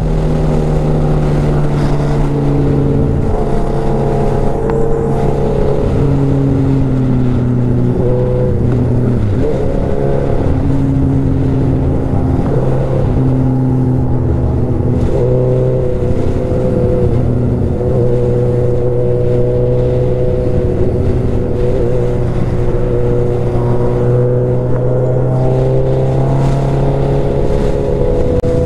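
Motorcycle engine running at a steady pitch, its revs rising near the end.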